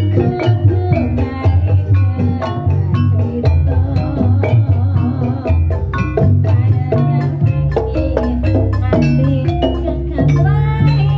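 Javanese gamelan-style music: quick, dense strikes on xylophone-like mallet instruments over a drum beat, with a sliding melodic line coming in near the end.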